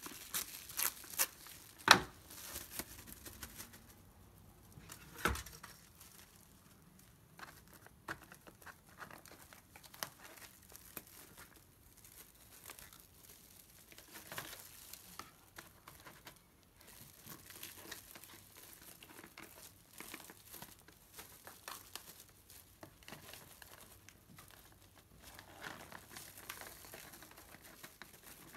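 Clear plastic wrap crinkling and rustling as hands wrap a burger box and a burger in it, with two sharper snaps, the louder about two seconds in and another about five seconds in.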